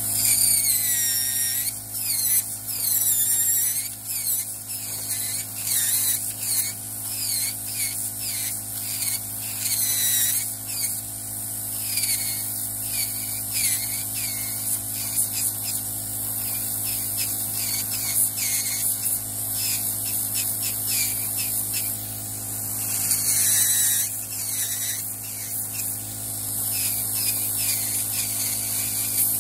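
Electric podiatry nail drill with a rotary burr grinding down a thick fungal toenail. A steady motor hum runs under a high whine that dips and recovers in pitch again and again as the burr bites into the nail, most often in the first ten seconds and again about three quarters of the way through.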